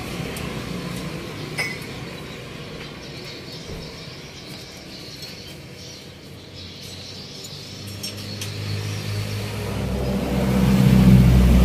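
A motor vehicle's engine running in the background, building over the last few seconds until it is the loudest sound, with a faint metal clink or two from brake parts being handled early on.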